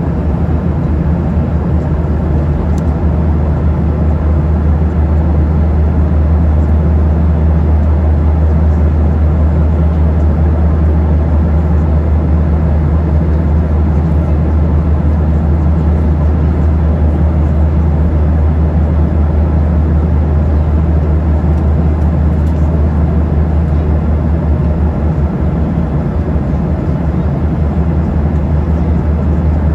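Steady cabin noise of a Boeing 737-800 in cruise: an even, unbroken low drone of engine and airflow noise heard from inside the cabin.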